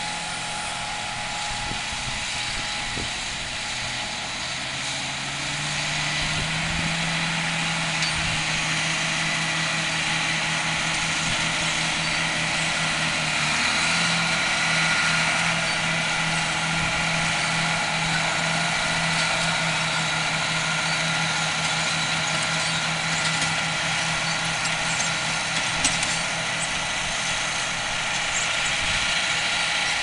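A John Deere row-crop tractor's diesel engine runs steadily under load, pulling a planter. The engine grows louder as the tractor nears, and its pitch dips slightly about halfway through as it goes by.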